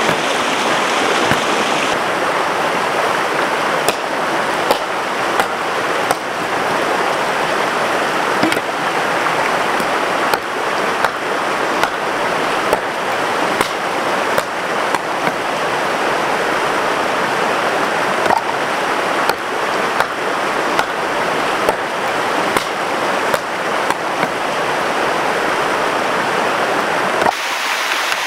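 Stream water rushing steadily, with frequent small sharp clicks over the flow. The texture of the water sound shifts abruptly about two seconds in and again near the end.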